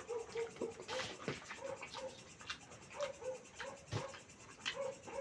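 Close-up mouth sounds of eating mutton curry with rice: steady chewing and wet lip smacking, a quick run of short clicks several times a second.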